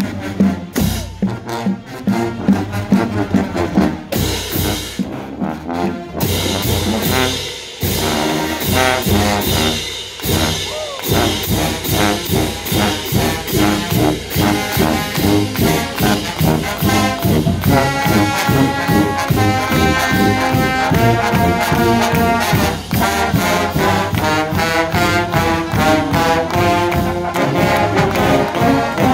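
Marching band playing live as it passes: drums and cymbals beat through the first few seconds, then sousaphones, trombones and trumpets play a tune in sustained chords over a steady drum beat.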